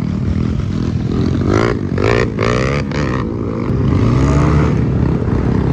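Several small motorcycles running along a rough trail, their engines steady and close. The engine note swells in bursts in the middle and climbs in pitch a little later as a bike speeds up.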